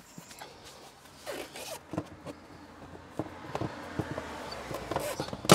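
A removed car headrest being handled and fitted into the storage slot on the back of the rear seat: rubbing and scraping of plastic and upholstery with scattered light clicks, and one sharp knock at the very end.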